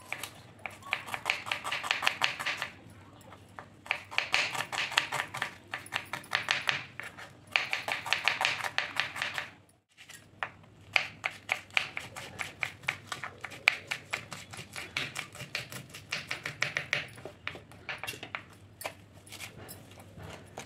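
Kitchen knife chopping onions on a wooden cutting board, fast runs of taps several a second with short pauses between runs. After a short break about ten seconds in, slower, more uneven knife strokes slicing green chillies and chopping coriander leaves on the board.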